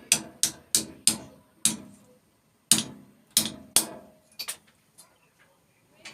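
Hammer blows on microwave scrap metal, about ten sharp knocks in uneven groups over the first four and a half seconds, then only faint knocks.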